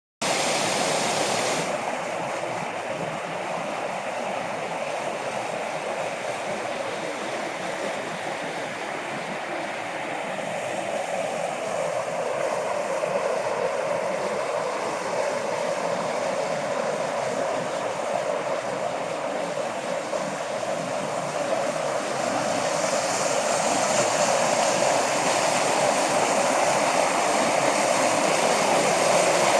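Mountain valley stream flowing steadily, a continuous rushing of water that grows louder and brighter about two-thirds of the way through.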